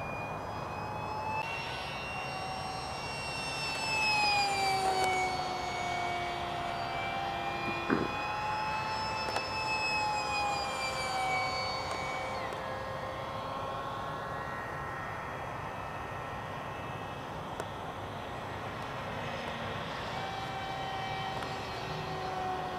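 Electric ducted fan of an Alpha MiG-15 model jet, driven by a stock 4900 kV motor, whining in flight. Its pitch slowly rises and falls as the jet passes and the throttle changes, loudest about four to five seconds in.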